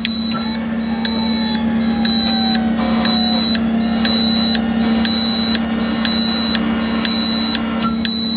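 EQ Smart-Level leveling system's warning beeper sounding a high-pitched beep about once a second while the jacks all retract, over a steady low hum.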